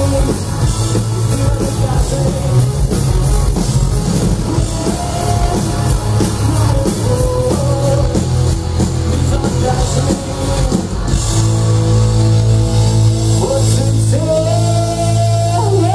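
Live rock band playing loud through a festival PA: distorted electric guitars, a drum kit and a male lead vocal. About eleven seconds in, the band moves into long held chords.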